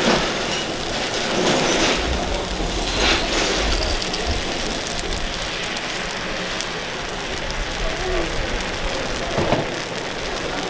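Takoyaki batter sizzling in the oiled wells of a takoyaki pan, a steady crackling hiss.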